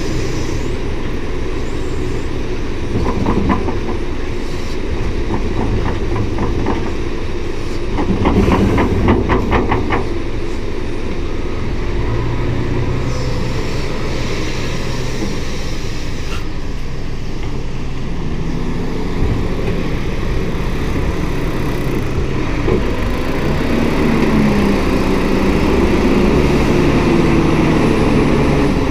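Heavy diesel engines work steadily while a wheel loader fills a steel tipper trailer with gravel. Stone pours and clatters into the body about three seconds in and again around eight to ten seconds. Near the end an engine revs up.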